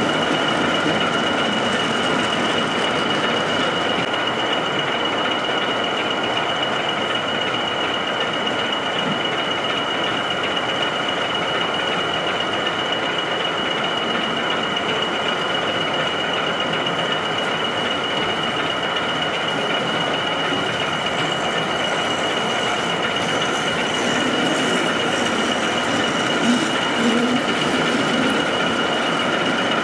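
O gauge model diesel locomotive running on the layout track: a steady high whine over an even running noise, swelling a little near the end.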